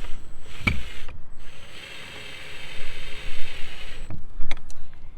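Cordless drill running steadily for about two and a half seconds, driving hardware into the wooden shed door. A sharp knock comes before it, and a few clicks and knocks after it.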